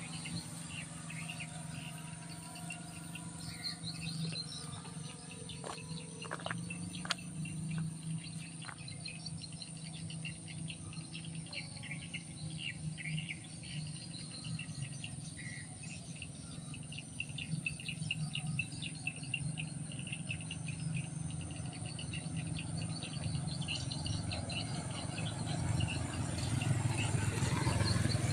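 Insects and birds chirping in rapid, repeated calls over a steady low hum.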